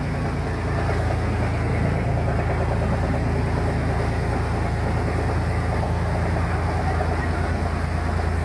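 A boat engine running steadily with a low drone, straining to push the boat upstream through an open sluice gate against a strong current, over the rush of churning water.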